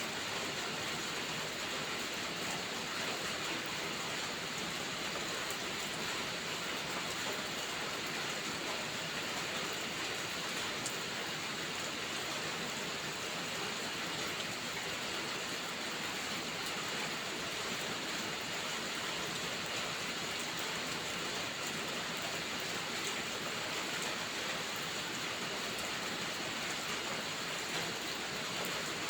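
Steady rainfall, an even hiss that does not change, with a few faint ticks here and there.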